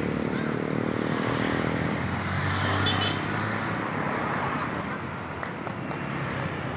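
Road traffic noise: a vehicle's engine running with steady road rumble, its low hum fading after about two seconds.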